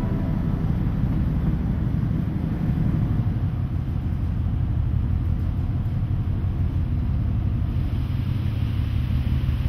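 Ship's engines running with a steady low rumble, heard from the ship's open deck.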